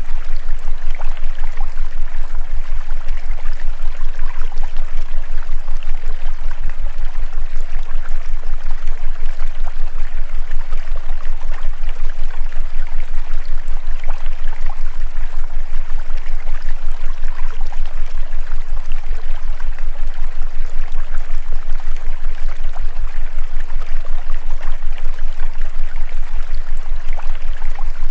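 Steady rushing water sound like a stream, with a deep hum underneath that pulses several times a second. This is the looped masking track of a subliminal recording, which carries hidden affirmations.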